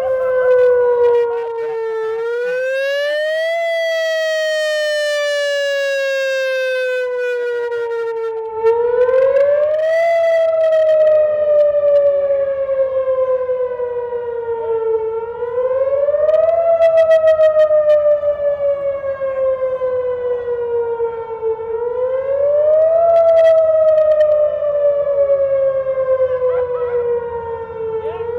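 Outdoor warning (tornado) siren sounding a test wail. Its tone rises quickly and then falls slowly, over and over about every six and a half seconds, and the level swells and fades as the rotating siren head sweeps around.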